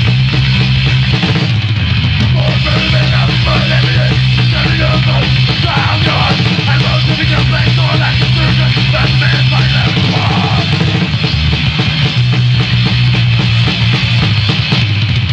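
Lo-fi rehearsal recording of a hardcore punk band playing at full tilt: distorted guitar, bass and fast drums in a dense, loud wall of sound, with shouted vocals through the middle.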